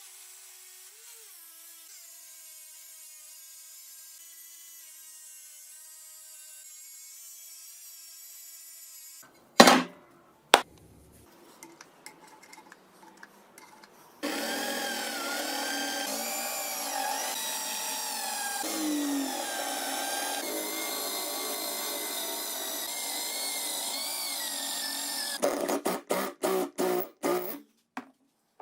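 Workshop power tool work: a faint steady hum, two sharp loud knocks, then a louder running tool whose pitch wavers under load, ending in a quick string of short bursts.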